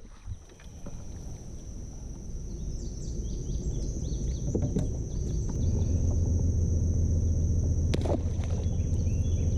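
Outdoor riverside ambience: a steady high-pitched drone with scattered short chirps, joined about halfway in by a low steady rumble, with a few sharp clicks.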